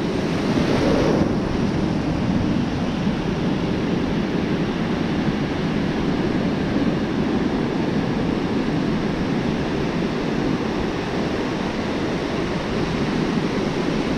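Ocean surf washing steadily onto a beach, with some wind noise on the microphone.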